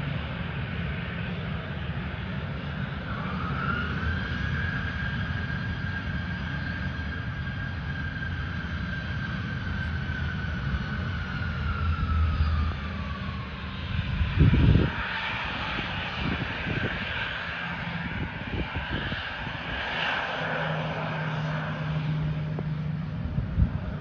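Airbus A321-231 jet engines (IAE V2500) running on the runway. A high whine rises about three seconds in, holds, then slides down, and the engine noise grows louder from about halfway through as the airliner starts its takeoff roll. Wind buffets the microphone with low rumbles, loudest about halfway through and again at the end.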